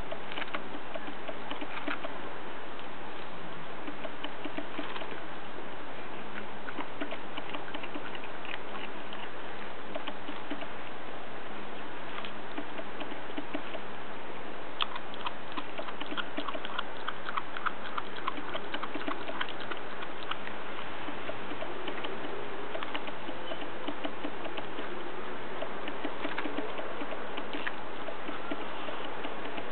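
Groenendael puppy chewing and gnawing raw green tripe: wet smacking and sharp clicks of teeth and tongue, busiest about halfway through, over a steady hiss.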